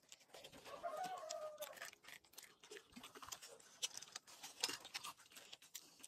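Faint crunching and clicking of someone biting and chewing cooked corn on the cob. A short call, falling slightly in pitch, sounds about a second in, likely a bird.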